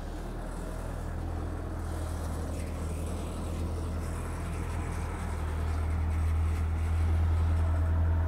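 An engine running at a steady idle, a low hum that grows louder about five seconds in.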